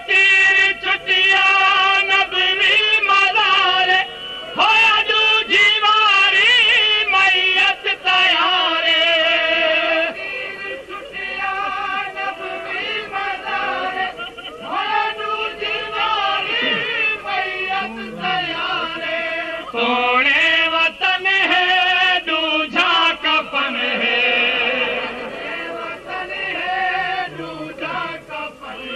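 Devotional kalam, a noha-style lament, chanted in long, wavering held notes without clear words.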